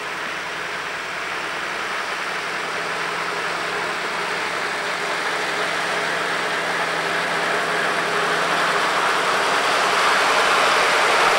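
Metre-gauge diesel railcar's engine running, growing steadily louder as the railcar moves off and draws nearer.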